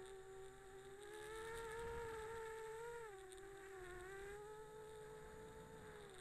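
Quadcopter's Emax Eco 2306 1700KV brushless motors and propellers whining in flight, heard from on board the drone. The pitch climbs about a second in, dips twice around the middle, and drops away near the end as the throttle changes.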